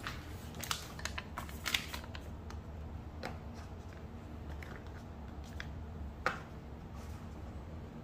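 Light handling noise: scattered crinkles and small clicks as a foil sheet-mask pouch is handled and set down among skincare bottles, with one sharper tap about six seconds in, over a steady low hum.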